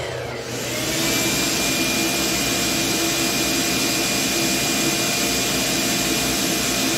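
Miter saw motor running with its blade spinning freely, no cut, together with a shop vacuum that an automatic switch starts along with the saw; the combined whirr swells about a second in as the vacuum comes up to speed, then holds steady.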